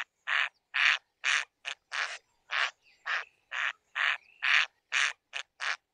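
A duck quacking, a steady run of short harsh quacks at about two a second.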